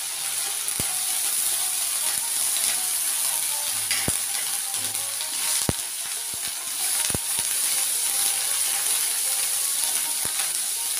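Spices frying in hot mustard oil in a metal wok, sizzling steadily as fresh coriander leaves are stirred in. The spatula knocks and scrapes against the pan several times.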